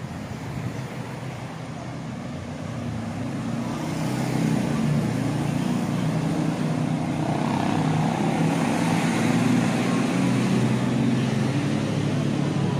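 Street traffic with a vehicle engine running close by, growing louder about four seconds in and then holding steady.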